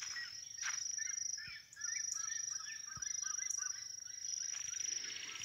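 Red-legged seriemas calling: a quick series of short, rising-and-falling notes, mostly in the first half, over a steady high-pitched insect trill.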